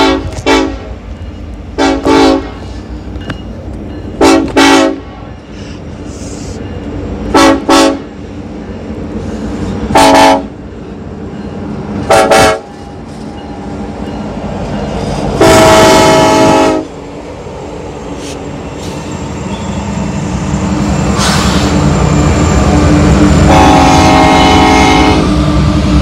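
A BNSF SD70ACE locomotive's horn, several notes sounding at once, blown in a string of short toots, some doubled, roughly every two to three seconds. It then gives a long blast about halfway through and another near the end. Under the horn, the rumble of the locomotives' engines and wheels grows steadily louder as the train comes alongside.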